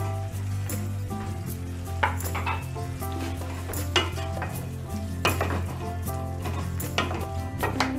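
A wooden spoon stirring potato chunks in a stainless steel pot, knocking against the metal sides every second or so over a sizzle of cooking food. Background music with sustained tones plays underneath.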